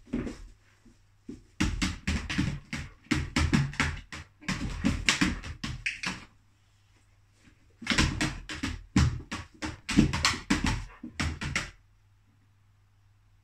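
A dog's paws and claws knocking and clattering on a clear plastic storage box, in two busy spells of quick, irregular thumps and taps.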